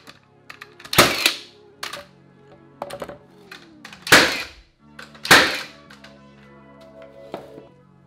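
Cordless Milwaukee framing nailer driving framing nails into 2x4 studs: three loud sharp shots, about one second in, about four seconds in and again a second later, with a few lighter knocks between. Background music plays underneath.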